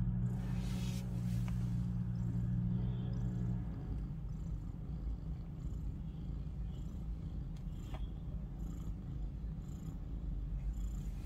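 A mother cat purring steadily while nursing her newborn kittens, close to the microphone; the purr gets quieter a little under four seconds in and carries on as a softer low rumble.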